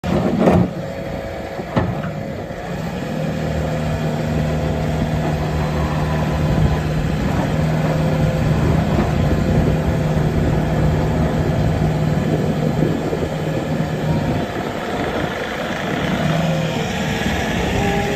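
Bobcat T770 skid steer's 92 HP Doosan diesel engine running steadily, with two sharp knocks in the first two seconds and its note shifting after about fourteen seconds.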